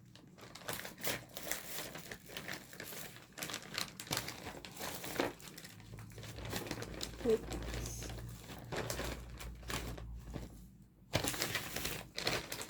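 Plastic and paper crinkling irregularly as they are handled.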